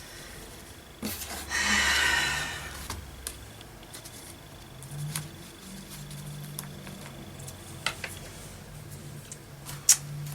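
Hands handling craft materials on a table: a rustle about a second in, a few light taps, and a sharp click near the end.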